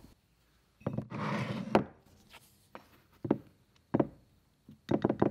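A small ceramic drawer being pulled out of a wooden spice rack: a knock, a short scraping slide ending in a sharp clack about two seconds in, then single light knocks and a quick cluster of clacks near the end.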